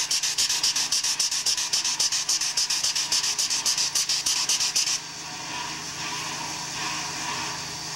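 Steam hissing from AT&SF 3751, a 4-8-4 steam locomotive standing at rest: a fast pulsing hiss, about ten pulses a second, that changes abruptly about five seconds in to a steady, quieter hiss.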